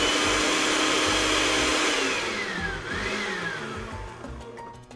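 Countertop blender motor running flat out, blending a thick paste of peppers, ginger, garlic, lime, mint and a little coconut oil. Its whine winds down about two seconds in, spins up briefly again around three seconds, then stops. Music comes in near the end.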